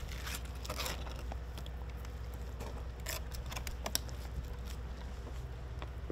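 Fillet knife cutting and scraping through a kingfish, with a few sharp clicks, over a steady low hum.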